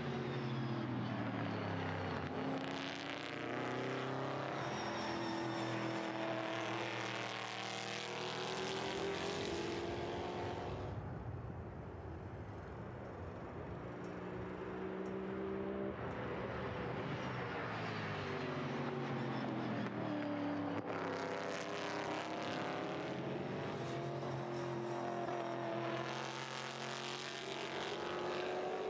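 V8 race car engines at full throttle, their pitch climbing through each gear and dropping back at every upshift, over and over as the cars pass. For a few seconds in the middle the sound goes duller.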